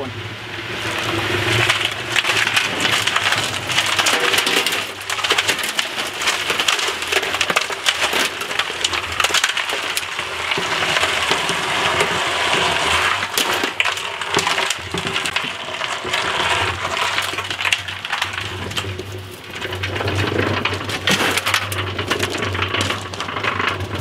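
Old Sears and Roebuck electric cement mixer running with its drum tipped, a wet concrete mix tumbling and pouring out with a dense gritty rattle of stones and sand over the steady hum of the motor.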